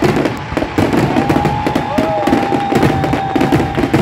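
Fireworks display going off: a dense run of crackling and popping bangs from the shells and fountains, with a thin steady whistling tone over most of it.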